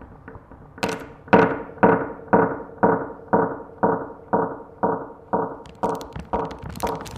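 A pitched, ringing strike repeated about twice a second, a dozen or so times. It starts about a second in, and each strike dies away before the next. Faint ticking comes before it, and a rougher noise builds under the last strikes.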